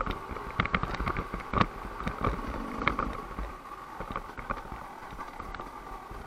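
Enduro dirt bike engine running at low speed, with frequent knocks and rattles as the bike bounces over a rough trail; it gets quieter after about three seconds.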